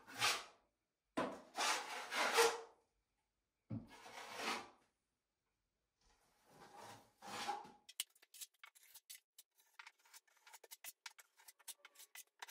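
Steel plastering trowel scraping multi-finish plaster across plasterboard in several long sweeping strokes, then a quick run of short scrapes and ticks from about eight seconds in. The mix is too thick and drags rather than flowing.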